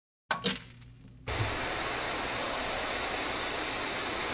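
A sharp click as an old CRT television switches on, then about a second in a steady, loud hiss of TV static that cuts off abruptly near the end with another click.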